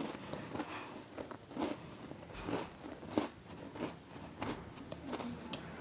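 A person chewing a mouthful of snacks, crunching about once every half second or so.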